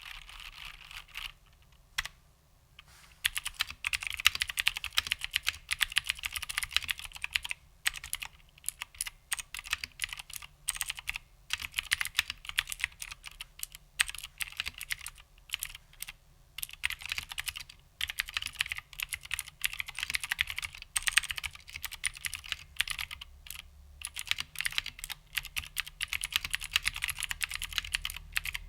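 Typing on an HMC C386SX keyboard with vintage Cherry MX Blue clicky switches and original Cherry doubleshot keycaps: fast runs of crisp key clicks, broken by short pauses.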